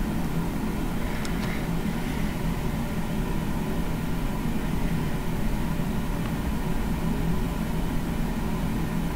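A steady background hum with a constant low drone, like a fan or air conditioner running, with a couple of faint clicks about a second in.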